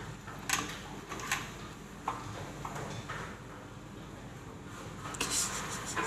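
A sleeping dog snoring, with short rasping breaths and a longer, louder rasping breath about five seconds in.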